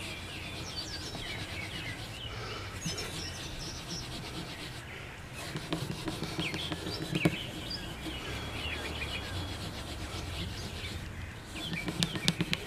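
Hand rubbing polishing compound into the spruce top of a Martin acoustic guitar, a soft steady rubbing with a few light knocks. Birds chirp throughout.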